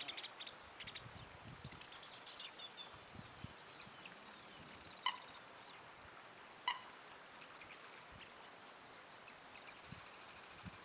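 Songbirds calling outdoors: quick high trills and chirps come and go, and two sharp ticks sound about five and six and a half seconds in.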